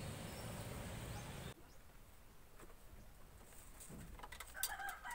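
A chicken clucking briefly near the end, with a few light clicks around it. Before that, steady faint outdoor background noise runs for the first second and a half, then cuts off.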